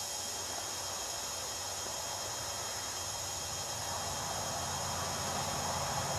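Steady high chirring of insects, likely crickets, over a background hiss. In the second half a low motor hum comes in and grows slowly louder.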